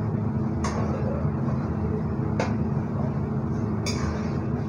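A metal spoon clinks against an aluminium pan three times as a pot of simmering sambar is stirred, over a steady low hum.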